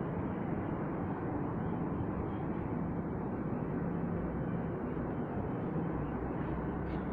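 Steady outdoor city ambience heard from high up: an even low rumble and hiss with a faint steady hum through it.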